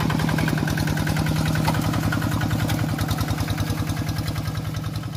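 A walking (two-wheel hand) tractor's single-cylinder diesel engine runs steadily with an even, rapid chugging while the tractor works through the flooded rice paddy mud.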